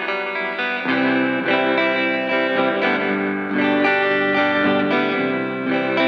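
Electric guitar played through a Fender Reflecting Pool delay and reverb pedal, its notes ringing on and overlapping in the echoes and reverb. Lower notes join in about a second in.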